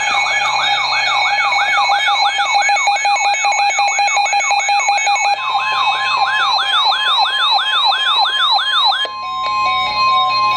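Electronic siren-like alert tone, warbling rapidly at about three sweeps a second over steady tones. A steady tone near 1 kHz joins about halfway through, and the warble stops about nine seconds in, leaving that tone.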